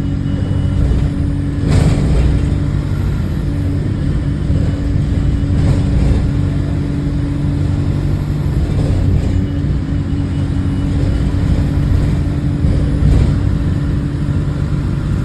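Diesel engine of a London bus heard from on board while it drives, running steadily, with a few brief knocks and rattles. The bus has an exhaust leak.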